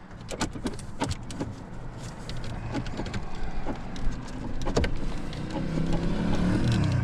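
Plastic dash trim and vent panel clicking and ticking as it is pried and worked against its retaining clips. A low hum builds up in the last couple of seconds.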